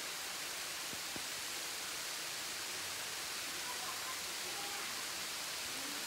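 Steady rush of a 50-foot waterfall, an even hiss with no change, with two faint clicks about a second in.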